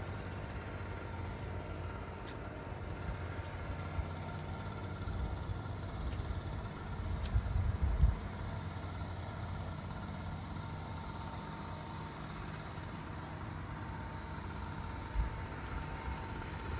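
A steady low mechanical hum with a faint steady whine above it, from a running motor or engine. Brief low rumbles come about halfway through and again near the end.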